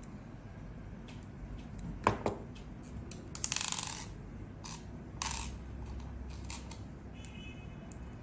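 Small metal parts and tools clinking on a hard work surface: a sharp click about two seconds in, a brief metallic jingle around three and a half seconds, and another clink a little after five seconds.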